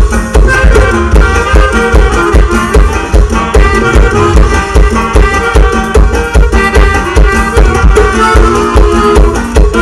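Norteño band playing live dance music: accordion melody over a steady, evenly pulsing bass and drum beat.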